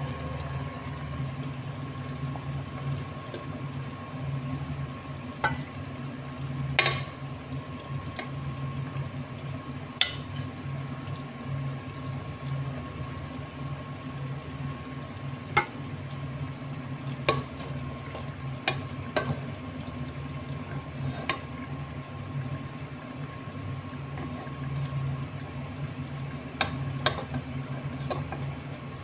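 A metal spoon clinking and scraping against the pot and plate while ladling out stew with its broth: scattered sharp clinks over a steady low hum.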